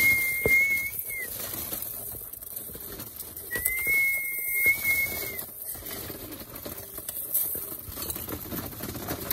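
Two long, level whistles a few seconds apart, each rising slightly at the start and dropping off at the end, with pigeons' wings and feet scuffling and tapping in the loft.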